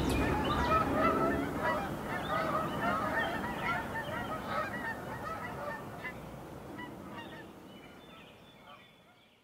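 A flock of birds calling: many short honking calls overlapping, over a low rumble that dies away in the first second or so. The whole sound fades out gradually.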